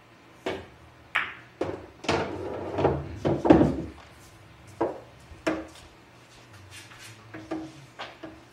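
Pool balls on a billiard table making a string of sharp clicks from cue-tip strikes and ball-on-ball contacts. A denser run of knocks with a low rumble comes about two to four seconds in.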